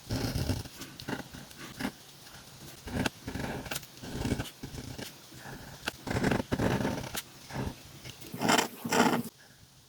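A calligraphy pen scratching across paper in short, irregular strokes with brief pauses between them, as gold capital letters are written.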